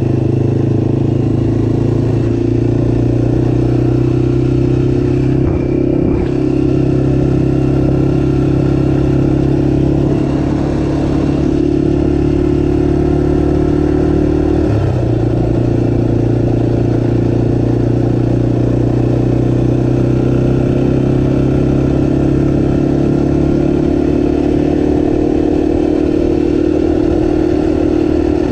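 Off-road vehicle engine running steadily at cruising speed, its pitch held nearly even, with a brief change in pitch about halfway through.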